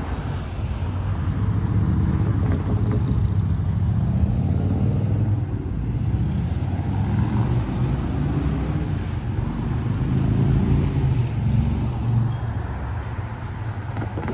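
Road traffic: cars passing on the street, a low rumble of engines and tyres that swells and fades.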